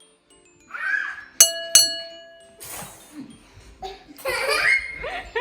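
Children laughing and squealing, with two sharp, bright ringing clinks in quick succession about a second and a half in.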